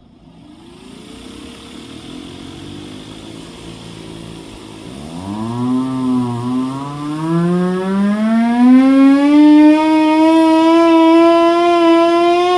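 A blower starts up and runs with a steady hum. About five seconds in, a hand-crank siren begins winding up: its wail rises in pitch, dips briefly, then climbs steadily and grows very loud.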